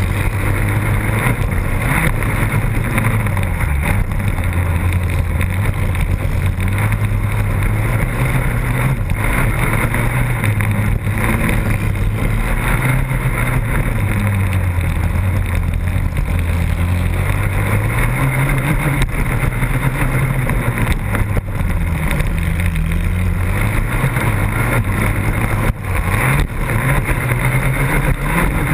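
Race quad's engine heard from an onboard camera, running hard at high revs, its pitch rising and falling again and again as the throttle is worked through the turns and straights.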